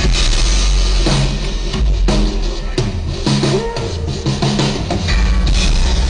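Live rock band playing loudly on stage: a drum kit beating steadily over heavy bass and guitar.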